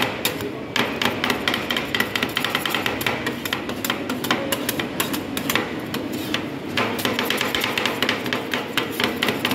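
Two steel spatulas clacking rapidly and irregularly against a stainless-steel ice-cream cold plate, several strikes a second, as gulab jamun pieces are chopped and mixed into the freezing cream base for rolled ice cream.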